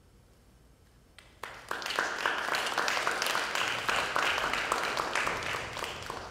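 Audience applause breaks out about a second and a half in, after a brief hush, and carries on steadily.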